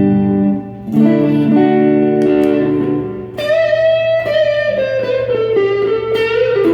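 Electric guitar with Fender '62 Big Dipper pickups played through a valve tube amp in its clean original tone, without the wah: a few ringing chords, then about three seconds in a sustained single-note line that steps down in pitch.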